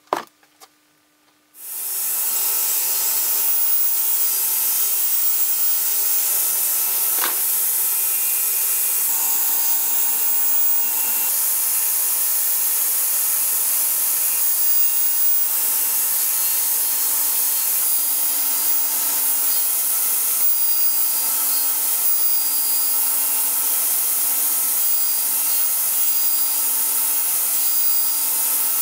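Sliding table saw running, a loud steady hiss with a faint hum that comes in abruptly about two seconds in and holds, as poplar plywood is cut on it. A sharp click comes at the very start.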